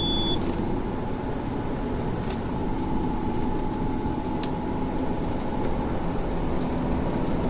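Steady road noise of a car cruising on an expressway, heard inside the cabin: tyre and engine rumble with a faint steady hum. A short high beep right at the start and a single click about four and a half seconds in.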